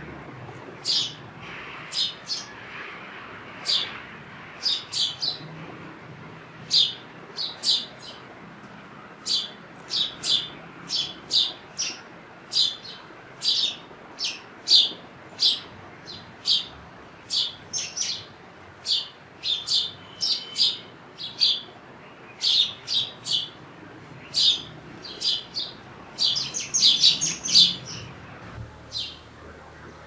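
House sparrow chirping: short, sharp chirps repeated one to three times a second, with a quicker run of chirps near the end.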